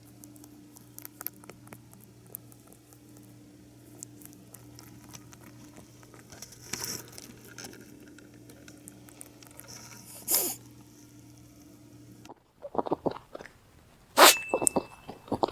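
A sleeping pet rabbit's small noises: faint clicks and two short breathy snores over a steady low electrical hum. About twelve seconds in the hum cuts off and a quick run of louder clicks and knocks follows.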